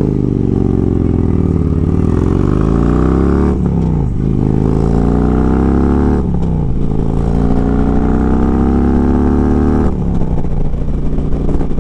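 Harley-Davidson Road Glide V-twin engine pulling hard through the gears. Its pitch climbs, then drops at each upshift: once about a third of the way in, again about halfway, and again near the end.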